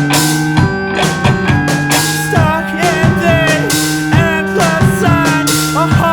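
Background rock-style music with drums, guitar and gliding pitched melody lines over a steady beat.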